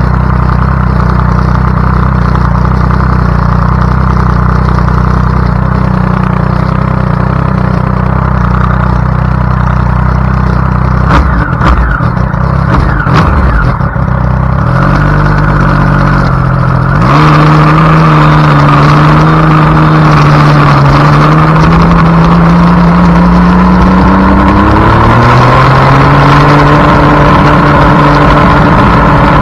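Triumph Daytona 675's three-cylinder engine running hard on a racetrack. The note holds steady at first and turns unsettled about eleven to fourteen seconds in. From about seventeen seconds it is louder and climbs in pitch under acceleration, rising again near the end.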